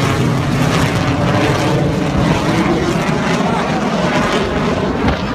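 Loud, steady noise of a low-flying airplane's engines passing overhead.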